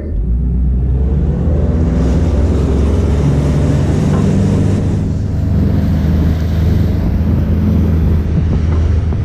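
Boat motor running steadily under way, a loud low drone with a constant pitch.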